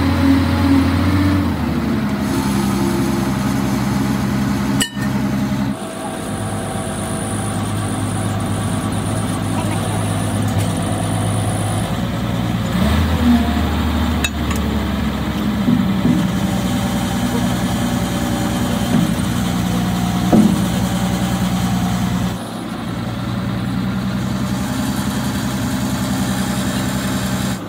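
Wheel loader's diesel engine idling steadily, its note changing abruptly a few times, with a single click about five seconds in.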